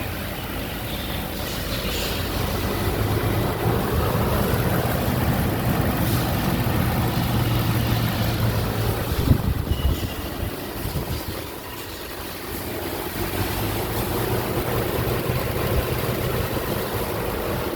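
Nissan Patrol engine running for a noise check, a steady low hum with a sharp spike a little past halfway, dropping in level briefly shortly after before running steadily again.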